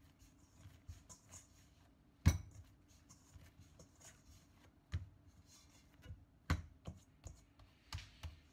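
Dough being kneaded by hand in a stainless steel mixing bowl: soft rubbing and light knocks, with a few dull thumps as the dough is pressed down against the bowl, the loudest about two seconds in.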